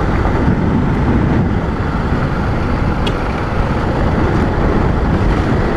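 Steady rumble of a motorcycle ride: road and wind noise with no distinct engine note.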